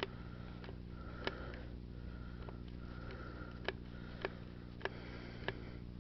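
Faint drips of old oil from the drained trimmer engine ticking into a catch container, the drops landing about every half second to second, over a steady low hum.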